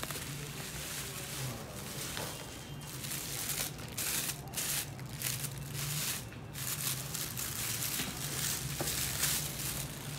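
Bubble wrap and a thin plastic bag crinkling and rustling in irregular bursts as a camera is unwrapped by hand, over a low steady hum.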